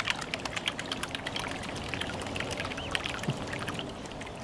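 Rubber-band-powered paddle wheel of a small wooden toy boat slapping and churning the water as it unwinds: a rapid, irregular patter of small splashes that eases slightly toward the end.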